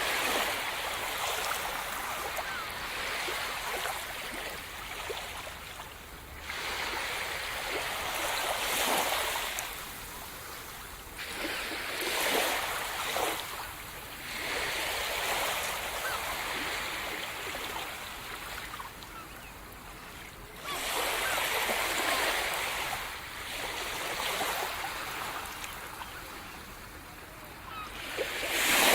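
Sea surf breaking and washing up the shore, swelling and falling back in surges every few seconds.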